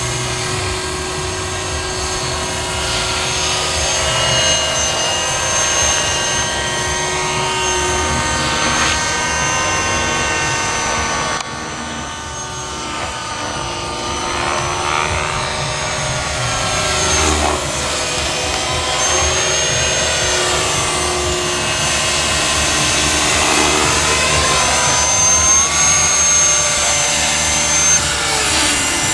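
Align T-Rex 500 electric RC helicopter flying: the whine of its brushless motor and gears over the rotor blades. The whine rises and falls in pitch as it manoeuvres.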